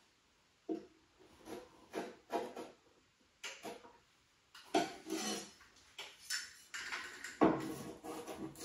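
A string of short, irregular clinks, knocks and scrapes as a metal triangle square is set down and shifted on a vanity cabinet's particleboard floor. The loudest knocks come near the end.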